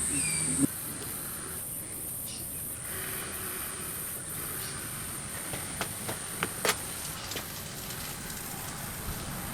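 A few light clicks from small parts being handled while a split pin is fitted through the clevis pin of a motorcycle rear brake master cylinder arm, over a steady high hiss.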